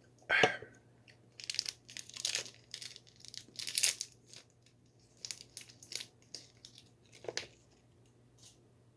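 Crinkly plastic wrapper of an individually wrapped Alfort chocolate biscuit being torn open and handled: one sharp snap about half a second in, then bursts of crackling through most of the clip.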